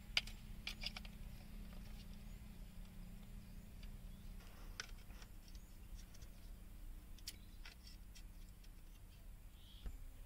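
Faint scattered clicks and light handling of a GoPro Hero 8 camera and its mic adapter as they are set up, over a steady low hum.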